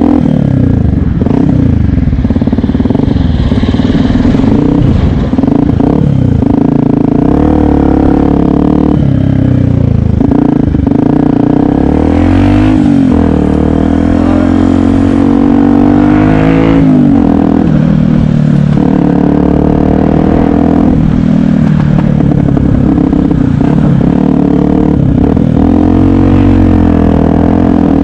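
Yamaha WR125X's single-cylinder four-stroke engine running as the bike is ridden, the revs rising and falling again and again through the throttle and gear changes.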